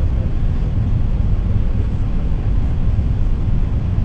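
Steady low rumble of an airliner heard from inside the cabin on the landing approach: jet engine and airflow noise.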